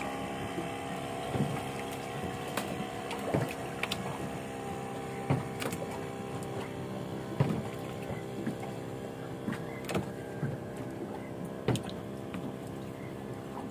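A boat engine drones steadily, with about ten sharp knocks or clicks at irregular intervals a second or two apart.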